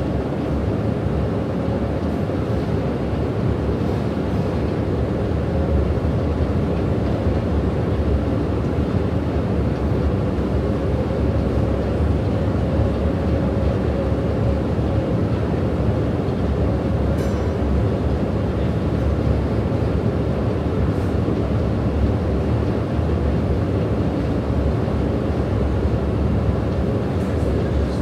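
Long subway-station escalator running as it carries the rider up: a steady low rumble with a faint hum.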